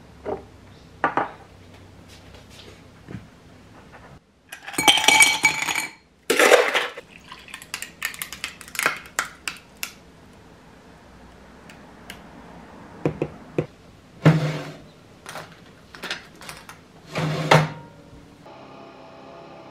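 Kitchen handling sounds of a glass and a carton: clinks and knocks of a glass with ice, almond milk poured from a carton over ice cubes, and the nearly empty carton shaken out with a few heavier knocks. A steady hum starts near the end.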